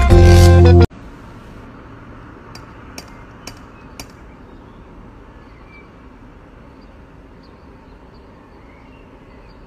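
Four light metallic knocks about half a second apart as a cat hanging on a front door raps the door knocker with its paw, over a low steady outdoor background. Loud music plays for the first second and cuts off suddenly.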